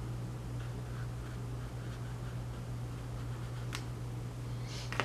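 Paintbrush dabbing and stroking wet watercolour on paper, faint soft scratches over a steady low hum, with a light tick or two near the end.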